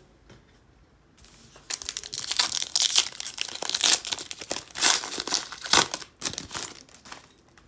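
Foil wrapper of a 2013 Panini Contenders football card pack crinkling and tearing as it is pulled open by hand. The crackling starts about two seconds in and goes on in loud, irregular bursts until shortly before the end.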